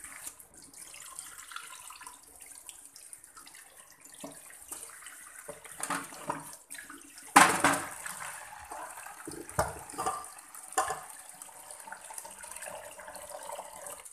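A block of set cream (malai) being knocked out of a plastic tub into a steel pot: a few knocks, then one loud thud about halfway through with a short ringing tail, followed by several smaller knocks, over a faint steady hiss.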